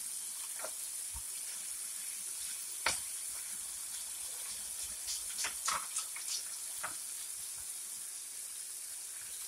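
Catfish frying in hot oil in a pot: a steady sizzle. A spatula knocks and scrapes in the pot once about three seconds in and several times between five and seven seconds.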